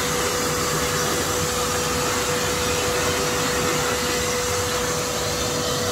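Dog-wash station blow dryer forcing air through a ribbed hose into a wet dog's coat: a steady rush of air with a constant tone running under it.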